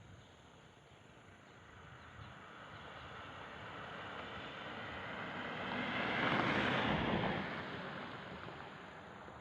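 A vehicle passing by: a rushing noise that builds for several seconds, peaks about six to seven seconds in, then fades away.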